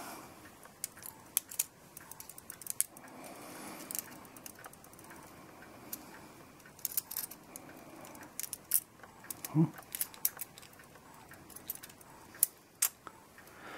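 Irregular light metallic clicks and taps of brass clock parts being handled as the verge is worked in between the plates of an Ansonia 8-day strike movement.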